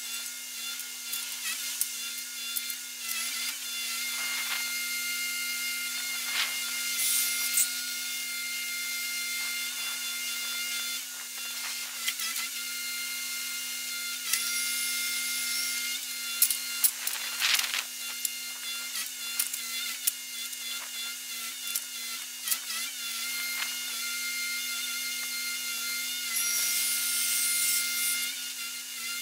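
Truck-mounted loader crane working on its hydraulics: a steady whine of several tones. Occasional scrapes, creaks and knocks come through, the loudest about a third of the way in and just past halfway, and there is a hiss near the end.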